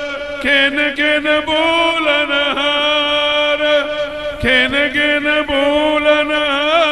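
Sikh Gurbani kirtan: a voice sings a long, drawn-out melodic line of a shabad over a steady held drone, with no clear words.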